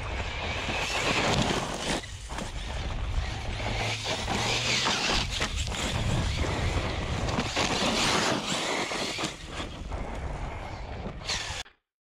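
Arrma Talion 6S RC truck's brushless electric motor and drivetrain whining as it runs across hard-packed dirt and gravel, with tyre and gravel noise, rising and falling with the throttle. The sound cuts off suddenly near the end.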